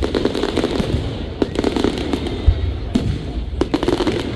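Fireworks display: a dense run of bangs and crackling, many sharp reports over a continuous low rumble.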